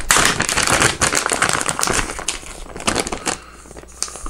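Plastic soft-bait package crinkling as it is pulled open and handled: a loud, dense crackle for about three seconds, then quieter scattered crinkles.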